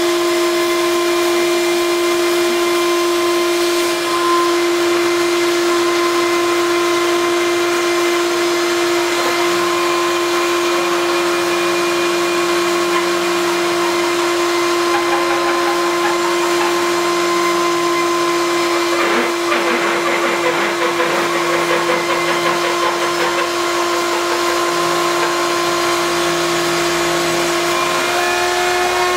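CNC milling machine at work: the router spindle runs with a steady whine while the axis stepper motors hum underneath, their pitch stepping up and down with each move of the cut. The machine is milling thin balsa and plywood at a deliberately low feed speed, because its worn second-hand mechanics lose steps.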